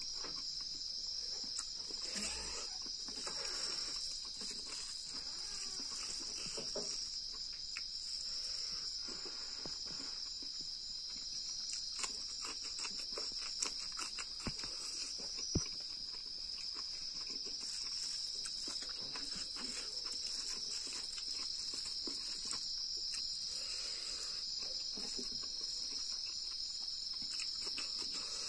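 A steady, high-pitched chorus of insects, overlaid with close-up eating sounds: rice and fish mixed and lifted by hand, and chewed with many short wet clicks and smacks.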